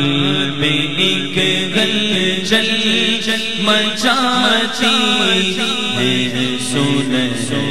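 A gathering of men chanting a devotional naat refrain together in unison, many voices over a loudspeaker system.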